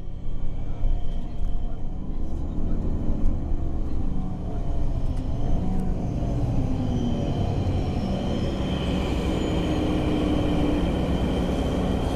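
Cabin noise aboard a Nova Bus LFSA articulated city bus under way: steady engine and road rumble, with the engine note rising and falling in the first half and a thin high whine joining about halfway through.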